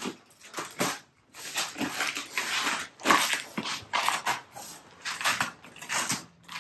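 Utility knife slicing through a large cardboard shipping box in repeated strokes, a scratchy rasp about two or three times a second.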